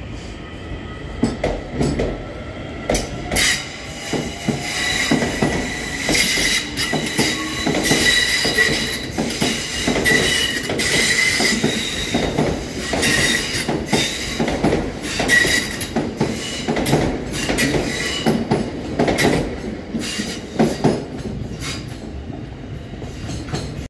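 Two coupled Irish Rail DART 8600-class electric units pulling away and rolling past. Their wheels squeal in a high steady tone for much of the time, over a run of sharp irregular clicks and clatter from the wheels on the track.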